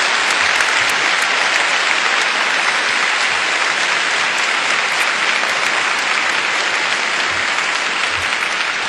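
Steady applause from a large seated audience in a hall: many people clapping together in one sustained round.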